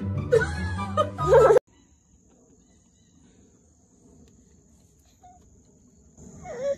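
Background music with a toddler's voice, cut off abruptly about a second and a half in. It gives way to a very quiet outdoor stretch with a faint steady high-pitched insect drone. A short rising-and-falling child's vocal sound comes near the end.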